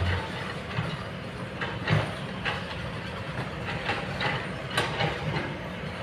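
Kobelco long-boom excavator working: its diesel engine runs steadily under a string of irregular clanks and knocks from the working machine.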